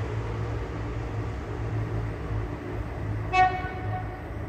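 An approaching Siemens Desiro class 460 electric multiple unit sounds one short horn blast about three seconds in, over a steady low rumble.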